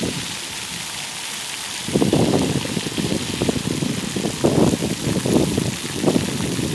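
Splash-pad fountain jets spraying, a steady hiss of falling water, with uneven louder low sounds coming and going from about two seconds in.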